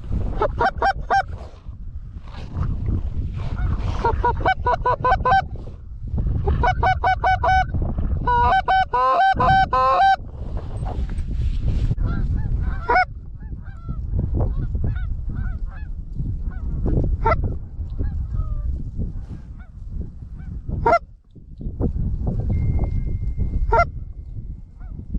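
Goose honks and clucks in fast, rhythmic runs, loudest in the first ten seconds and thinning to scattered single notes after that, over a low rumble.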